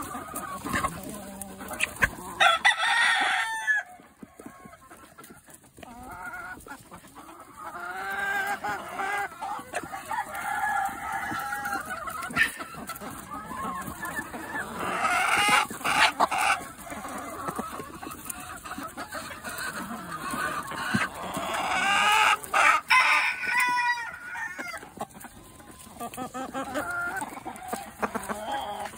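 A flock of hens and roosters clucking and squawking in busy bursts as they crowd and peck, with a rooster crowing and sharp taps of beaks on the apple. The calls grow loudest a few seconds in, again midway, and once more past two-thirds of the way through.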